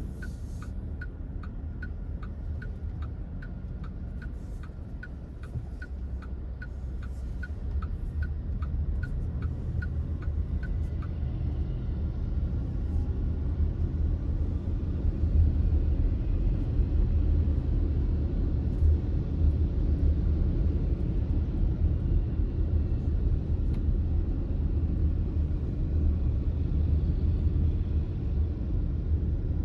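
A car's turn-signal indicator ticks about twice a second for the first ten seconds or so, over the steady low rumble of the car driving; the rumble grows louder after the ticking stops.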